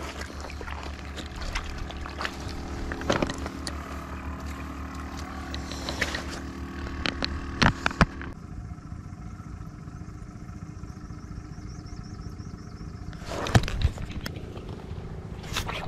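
An engine running steadily, its tone changing about eight seconds in, with a few sharp clicks and knocks.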